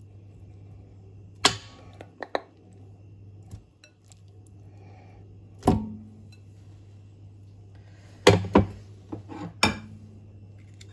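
About eight knocks and thuds in small clusters as chunks of raw meat are put into a non-stick pot, some with a short ring, over a low steady hum.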